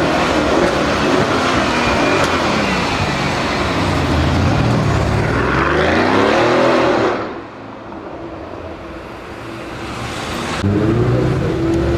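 Mercedes-AMG car engine revving hard, its pitch climbing, then suddenly dropping off about seven seconds in. A quieter engine sound follows and builds slowly, until loud engine noise starts abruptly near the end.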